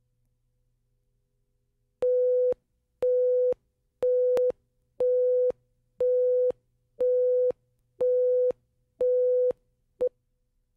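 Countdown leader beeps: a steady mid-pitched beep about half a second long, once a second, eight times, then a single short blip as the count reaches two.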